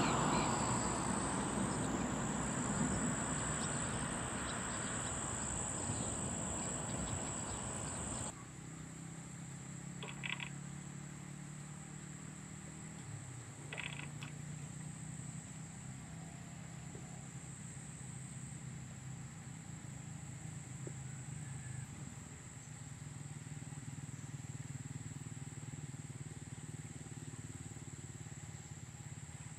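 Steady high-pitched insect trill running throughout. For the first eight seconds a louder rushing noise lies under it and then cuts off suddenly, leaving the trill over a faint low hum, with two short chirps.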